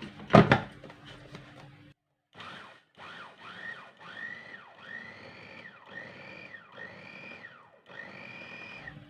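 Electric food chopper grinding chopped red onion in short pulses: the motor's whine rises and falls with each press, about eight times, after a sharp click near the start.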